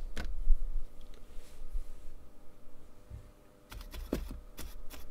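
Small clicks and taps from handling a circuit board and soldering tools on a workbench, with a cluster of sharper clicks near the end.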